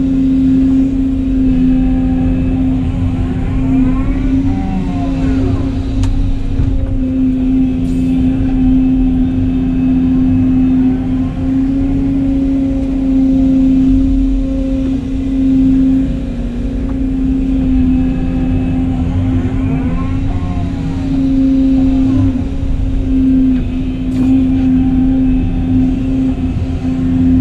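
Volvo excavator's diesel engine running steadily under load, heard from inside the cab, with a hydraulic whine that rises and falls a few times as the boom swings, digs and dumps.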